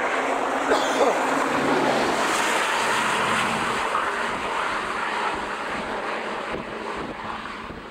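A vehicle passing close by on the interstate: a rushing tyre-and-air noise that swells just before the start and slowly fades away.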